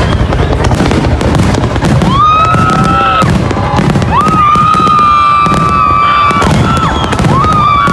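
Fireworks display: aerial shells bursting and crackling in a dense, continuous barrage. From about two seconds in, a high held tone comes in three times, each lasting a second or two.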